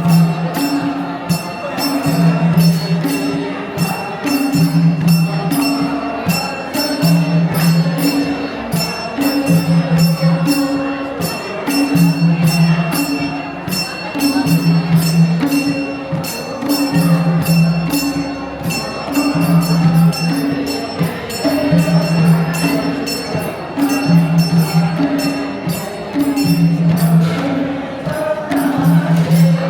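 Nepali folk dance music: a drum beats a repeating two-note pattern about every second and a half, under fast, even jingling of small metal percussion.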